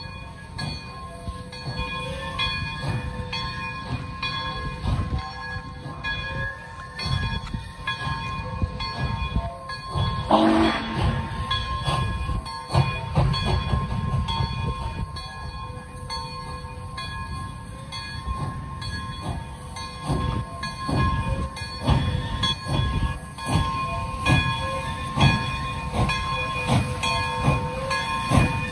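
Pere Marquette 1225, a 2-8-4 Berkshire steam locomotive, and its train arriving slowly: regular metallic clanks about one and a half times a second over steady ringing tones and a low rumble. One short, louder blast comes about ten seconds in.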